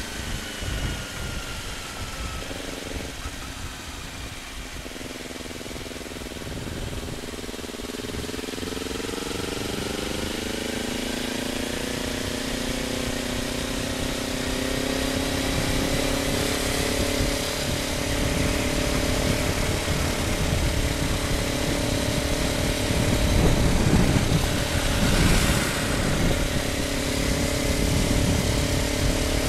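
Kawasaki Ninja motorcycle with an Akrapovic slip-on exhaust running on the move: the engine note dips slightly at first, climbs steadily as it accelerates, then holds at cruising speed, getting louder toward the end. A steady low rumble of wind on the microphone runs underneath.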